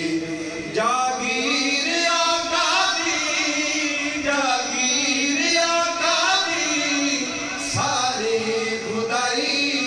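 A man singing a Punjabi naat into a hand microphone, long drawn-out lines with wavering, ornamented pitch and short breaths between phrases.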